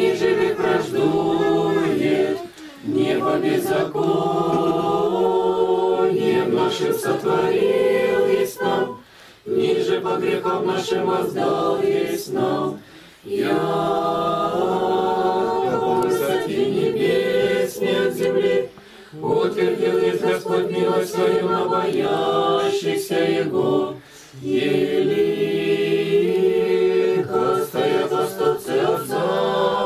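Unaccompanied group of voices singing Orthodox liturgical chant in long held phrases, with about five short breaks for breath between them.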